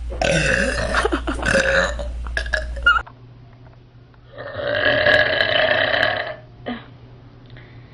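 Two long, loud belches: the first lasts about three seconds, and the second starts about four seconds in and lasts about two seconds.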